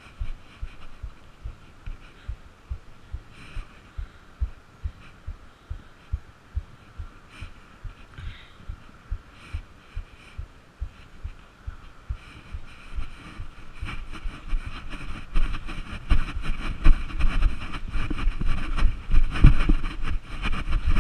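Footfalls thudding into a camera worn by a player, about two a second at a walking pace. From about two-thirds of the way in they come quicker and louder, with more rushing noise behind them.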